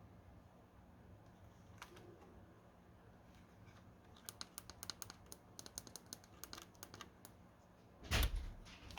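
A quick run of small, sharp clicks and taps for about three seconds, then a single louder thump with a brief rustle near the end, typical of hardware and packaging being handled.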